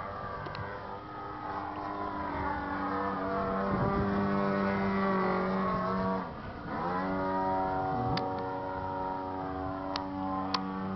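The engine of a radio-controlled model aerobatic plane running in flight. Its note sags slowly, drops and rises again sharply about six seconds in, then holds steady, with a few sharp clicks near the end.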